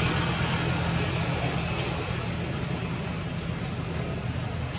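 Low, steady engine hum that slowly fades.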